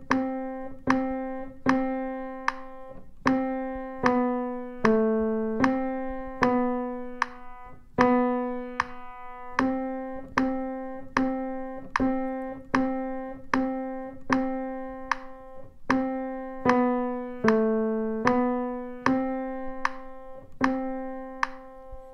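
Piano played one note at a time by the left hand: a slow, even line of single notes, a little more than one a second, moving between middle C and the notes just below it. It is a beginner's left-hand melody.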